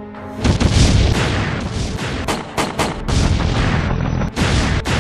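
Artillery shells exploding amid gunfire: a loud boom about half a second in, then a run of sharp blasts and shots over a dense rumble.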